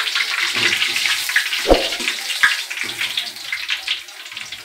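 Hot cooking oil sizzling and crackling around pieces of pan-fried tuna, dying down toward the end, with one knock about a second and a half in and a small click after it.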